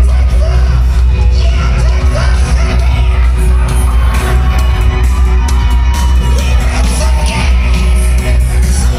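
Loud music with a heavy bass and singing, with crowd voices whooping and shouting over it.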